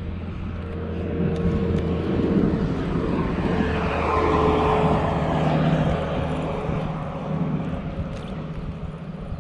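Propeller aircraft passing overhead: a steady engine drone that swells to its loudest around the middle and then fades, its tone dropping slightly in pitch as it goes by.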